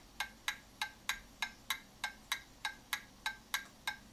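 German chiming mantle clock movement ticking: the escapement's pallets working on the escape wheel, sharp ticks evenly spaced at about three a second. The even spacing is the clock running in beat, its pallets now working properly after being reset from dropping too deep into the escape wheel teeth.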